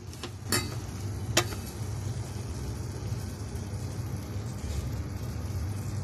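Steady low mechanical hum, with two sharp clicks about half a second and a second and a half in.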